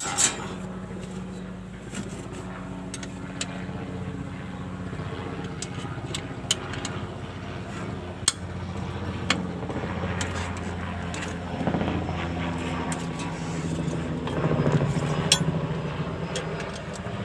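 Engine running steadily, with sharp metallic clicks and taps over it. It gets a little louder in the second half.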